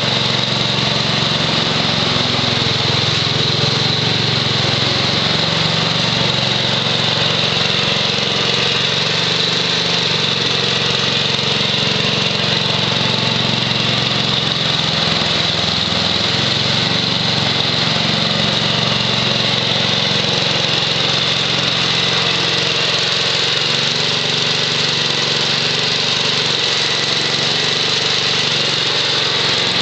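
The 6 HP Tecumseh H-60 single-cylinder engine of a 1967 Wheel Horse Lawn Ranger garden tractor runs steadily at an even speed while driving a 32-inch snowthrower.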